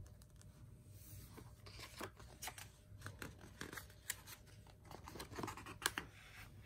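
Pages of a hardcover picture book being opened and turned by hand: soft paper rustles and a run of small crackles and clicks, the loudest near the end.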